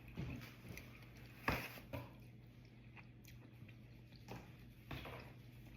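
Close-miked eating: bites and wet chewing, with a few sharp smacks spread through, the loudest about one and a half seconds in.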